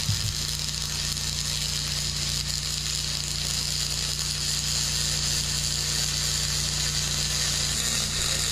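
Arc welding on an aluminum plate boat deck: a steady hiss of the welding arc over a low electrical hum.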